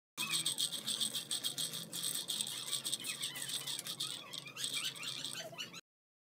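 Raw skin-on peanuts being stirred in a dry hot pan while dry-roasting: a dense, continuous rattle of nuts against the metal. It starts and stops abruptly.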